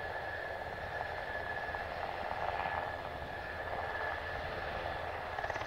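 Mitsubishi F-2's F110 turbofan whining as the jet taxis, a steady high tone over a broad rush.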